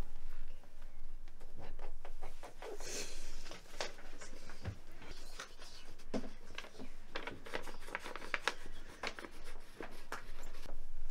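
Scattered soft rustling and light clicks of things being handled, such as toys and clothing, in a small room.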